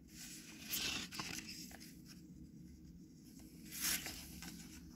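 A picture book's paper page being turned by hand: soft rustles about a second in and a brief, louder swish of paper near four seconds.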